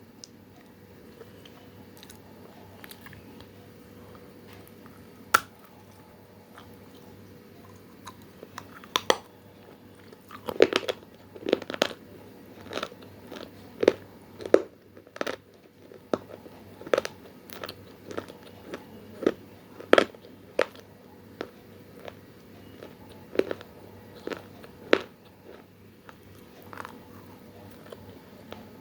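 A person biting into and chewing dry multani mitti (Fuller's earth clay), giving sharp, irregular crunches: a few scattered ones at first, then a quick run of them from about nine seconds in that thins out near the end. A faint steady hum lies underneath.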